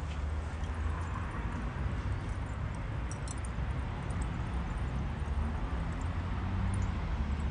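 Wind rumbling on the microphone over a steady hiss, with a few faint crackling ticks about three seconds in.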